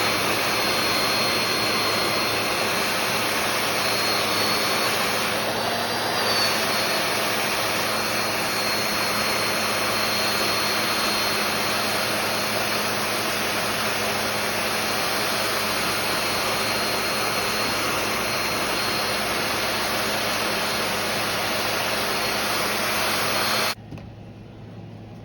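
Heat gun blowing hot air steadily, with a high whine from its fan, to soften the stubborn adhesive holding the phone's screen. It cuts off about a second and a half before the end.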